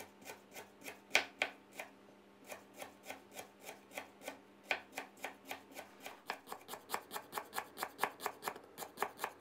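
Chef's knife slicing lemongrass stalks into thin rings on a wooden cutting board: a run of light knife taps on the board, uneven at first, then quicker and steadier at about four or five a second in the second half.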